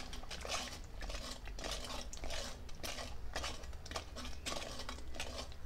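Steel spoon stirring a thick frying masala paste in a pan, with irregular scrapes and clicks of the spoon against the pan.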